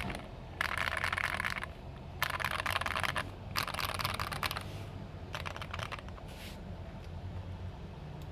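Typing on an Akko ACR64 keyboard built with lubed Akko Jelly Pink linear switches, tape and PE foam mods, and low-profile ASA keycaps. Three quick runs of keystrokes of about a second each, then fainter, shorter bursts.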